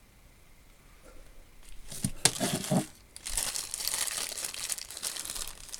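Crinkling and rustling of crinkly wrapping material being handled, starting about two seconds in and going on in irregular bursts, with a few light knocks near the start.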